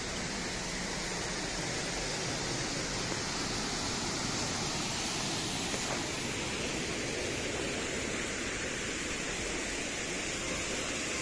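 Waterfall rushing steadily, an even hiss of falling water with no let-up.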